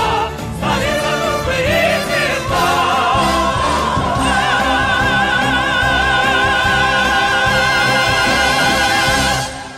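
Operatic singing with instrumental accompaniment. It ends on a long high note held with vibrato for about five seconds, which stops sharply just before the end.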